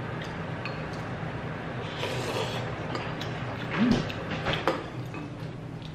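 Eating sounds: light clicks of wooden chopsticks against a ceramic bowl and mouth sounds of eating kalguksu noodles, with a brief hummed 'mm' just before four seconds in, over a low steady hum.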